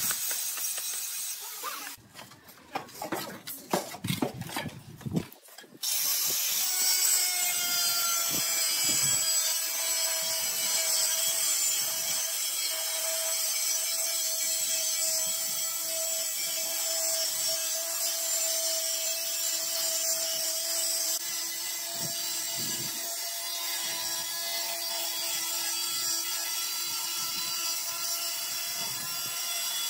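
A trowel handle knocking on a ceramic tile to bed it into the mortar, in quick runs of sharp taps. About six seconds in, a steady machine whir with a hum starts suddenly and keeps running, with a trowel scraping mortar beneath it.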